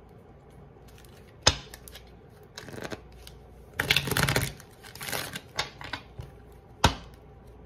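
A deck of tarot cards being shuffled and handled by hand: short rustling bursts of cards sliding against each other, with two sharp taps about a second and a half in and near the end.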